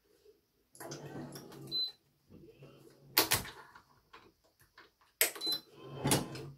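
Badminton racket being strung with BG80 string: a rasping pull of string lasting about a second, then sharp clicks and clacks of the stringing machine's clamps and tensioner, once near the middle and twice near the end.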